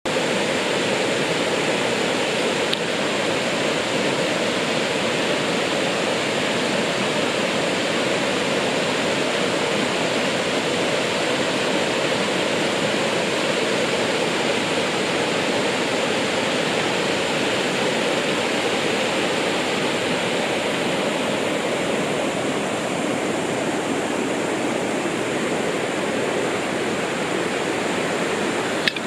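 Waterfall: water falling and rushing steadily, a constant dense roar of noise.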